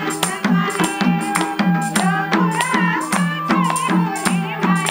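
Nepali folk dohori instrumental interlude: a madal drum keeping a steady quick beat with tambourine jingles, while harmonium and bansuri flute carry the melody.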